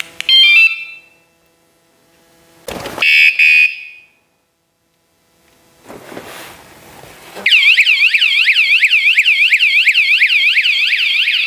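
Bicycle anti-theft alarm: two short beeps, then, as the bike is moved, a loud warbling siren sweeping up and down about four times a second.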